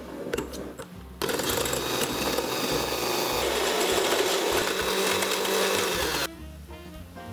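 Handheld electric mixer beating egg yolk with sugar in a glass bowl: it switches on abruptly about a second in, runs at a steady speed for about five seconds and cuts off suddenly. A few light clicks come before it starts.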